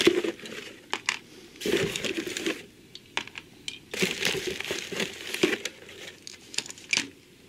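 Packaging rustling and crinkling, with scattered small clicks and knocks, as diecast toy cars are taken out of a box.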